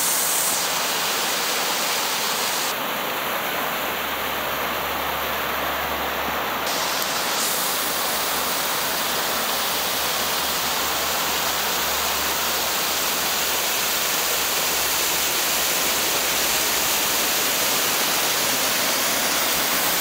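A waterfall's water rushing steadily down a rock face.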